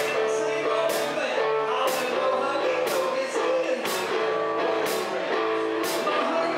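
Live rock band playing: electric guitar and electric bass with a male lead vocal, over a drum beat with a sharp hit about once a second.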